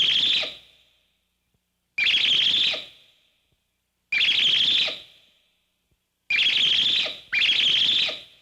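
Star Trek electronic alarm sound effect: a high, rapidly trilling tone sounding in short bursts, five times, about two seconds apart, the last two close together.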